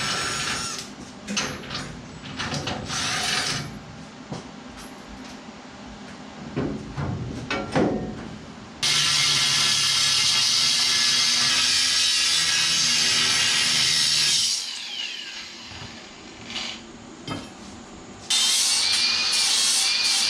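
A power grinder running in two stretches of several seconds each, most likely grinding a point onto a TIG tungsten electrode, with knocks and handling clatter before it starts.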